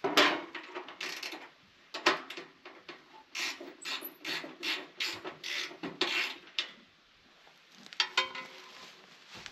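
Ratchet wrench worked in short back-and-forth strokes, about three a second, while parts are taken off the old Valmet 500 tractor to make room for the battery. Metal clanks come at the start, and one near the end rings briefly.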